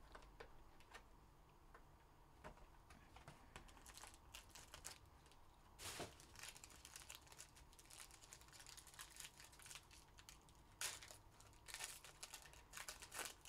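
Faint crinkling and tearing of a Topps Inception trading-card box and its foil pack being opened by hand, with scattered small clicks and rustles. A louder rustle comes about six seconds in, and more come close together in the last few seconds as the foil pack is torn open.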